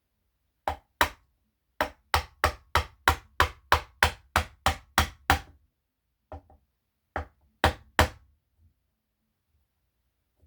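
Hammer strikes driving a Floyd Rose mounting stud insert into its hole in the guitar body: a quick run of about fourteen sharp taps, then after a short pause four more.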